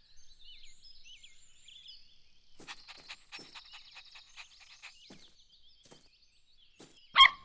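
Cartoon garden ambience: small birds chirping high and continuous, a puppy panting in quick soft puffs through the middle, and one short sharp puppy bark near the end, the loudest sound.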